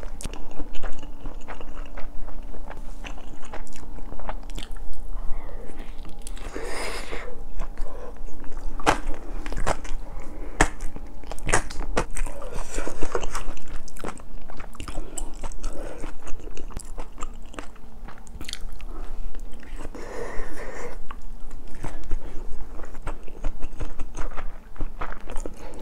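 Close-mic eating sounds: steady chewing with many small wet mouth clicks, as someone eats cheese fried rice from a stone pot.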